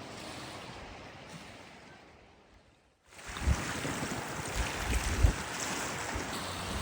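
Sea waves washing on the shore with wind buffeting the microphone. The sound fades almost to nothing, then cuts back in about three seconds in, with gusts of low rumble after that.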